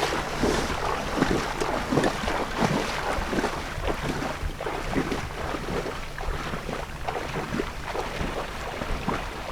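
Wind buffeting the microphone over open water, a steady low rumble with irregular gusty, splashy noise on top.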